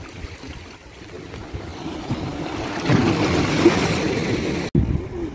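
Sea waves washing in, swelling to a peak about three seconds in and easing, with wind rumbling on the microphone. The sound cuts out abruptly for a split second near the end.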